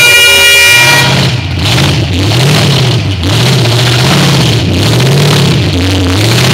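Off-road rock-crawler buggy engine revving up and down again and again, about once every second and a half, as it works up a rocky climb. It is loud throughout, with a higher, steadier engine note in the first second.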